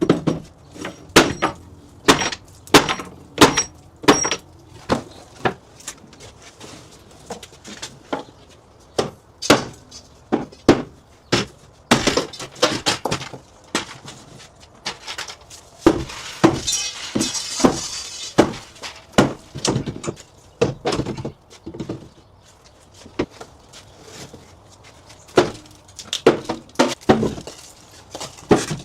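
Irregular hammer blows, about one or two a second, knocking a wall-mounted shelf loose, some of the early strikes with a high metallic ring. Midway there are a couple of seconds of scraping and rattling as the shelf shifts.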